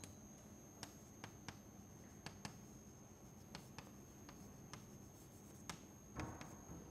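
Chalk writing on a chalkboard: faint, irregular taps and scratches as the chalk strikes and drags across the board.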